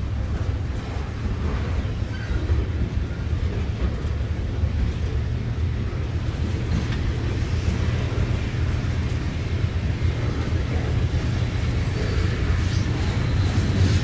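Freight cars of a passing train rolling by, covered hoppers and then lumber-loaded centerbeam flatcars: a steady low rumble of steel wheels on rail, growing a little louder near the end.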